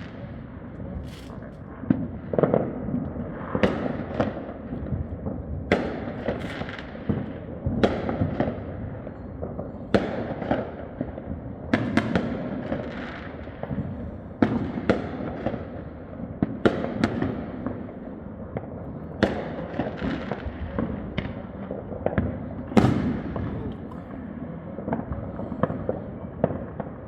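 Many fireworks going off all around at once: an unbroken barrage of booms and bangs at irregular intervals, one every second or so, over a constant background of crackling and distant thuds. Sounds like a war zone.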